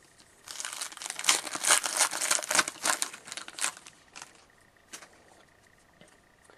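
Foil wrapper of a hockey trading-card pack crinkling and tearing as it is handled, for about three seconds, followed by a few faint ticks.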